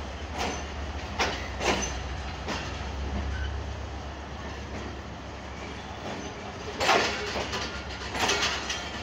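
Passenger train coach rolling slowly on arrival at a station, heard from the open coach doorway: a steady low rumble with scattered sharp metallic clanks from the running gear, the loudest bunches about seven and eight seconds in.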